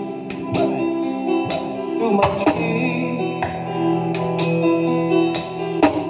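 Music played loud through a stacked mobile sound system of Geostorm 15-inch speaker cabinets during a sound check. It has held chords, regular drum hits and a strong hit near the end.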